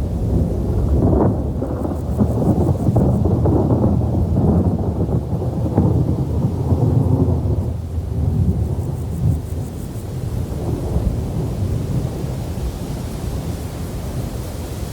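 Rolling thunder, a long low rumble that is heaviest through the first half and slowly dies away.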